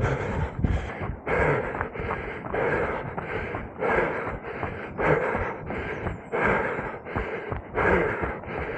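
A runner breathing hard and fast in a steady rhythm, about three breaths every two seconds.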